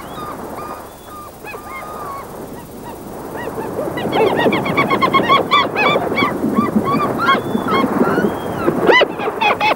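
A flock of birds calling, many short overlapping calls that grow busier about four seconds in, over a steady background rush.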